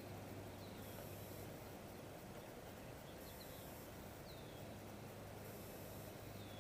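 A few short, faint, falling bird chirps, heard four times, over a steady low hum and outdoor hiss.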